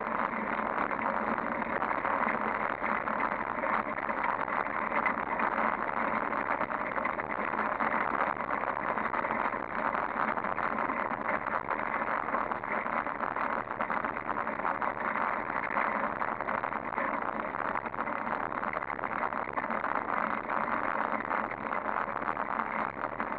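Steady rushing noise of a fixed-gear bicycle riding on asphalt, picked up by a camera mounted on the handlebars: tyres rolling on the road and air over the microphone, unchanging throughout.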